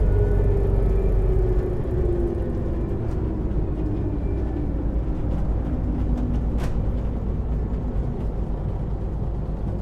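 Drivetrain of a Scania L94UB city bus with a ZF Ecomat 5HP600 automatic gearbox, heard while the bus slows. A whine falls slowly in pitch over a steady low rumble.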